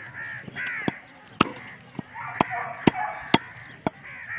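Meat cleaver chopping raw chicken on a wooden log block: about seven sharp chops, roughly every half second, starting about a second in. Crows caw between the chops.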